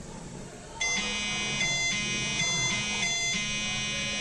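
A two-tone electronic alarm circuit built around a 555 timer and a 7476 JK flip-flop, switched on and sounding, alternating between two tones. It starts about a second in and keeps switching back and forth, a sign that the circuit is working normally.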